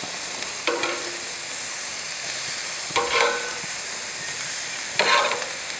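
Marinated steaks sizzling steadily on the hot stainless-steel grates of a gas grill while being turned with metal tongs, with three short metallic clinks of the tongs against the grate: about a second in, around three seconds, and near the end.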